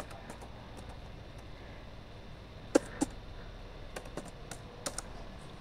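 Keys being pressed one at a time on an Asus X441U laptop keyboard: scattered clicks, with two louder ones close together about three seconds in. The keys are being tested one by one, and some of them don't register.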